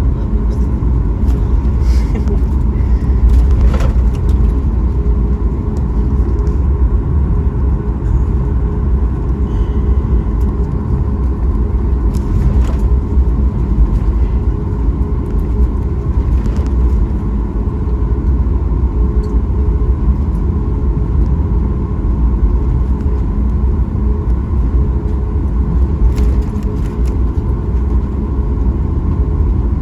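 Steady low rumble inside the cabin of a Boeing 737 MAX 8 with its engines running, an even drone with a faint steady hum above it and a few faint clicks.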